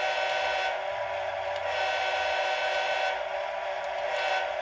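Digitally sampled diesel air horn from a Bachmann HO-scale ES44AC DCC sound locomotive, sounding continuously as a multi-tone chord through the model's small onboard speaker.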